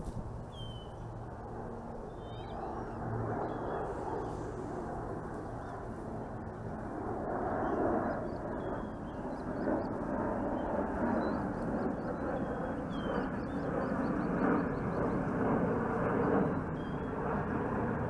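Steady low outdoor rumble with a faint hum, growing a little louder after several seconds, with short high bird chirps now and then.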